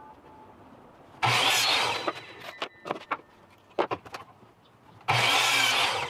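Electric miter saw run twice, each time cutting through a pallet-wood board for about a second and then winding down. A few sharp knocks between the two cuts.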